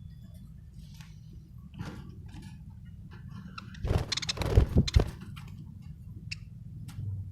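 Budgerigar making short, scattered chirps and clicks, with a louder burst of noise and low thumps about four seconds in.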